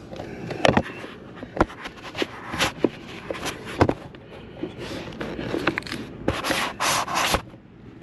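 Handling noise: irregular rubbing and scraping with scattered sharp clicks and knocks as the camera is moved about and set up under a car's dashboard, with a couple of longer rubbing rustles near the end.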